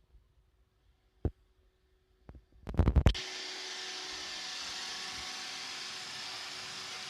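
iRobot Roomba robot vacuum starting up: a knock, then a quick run of loud clicks, after which its vacuum motor and brushes run with a steady whirring noise.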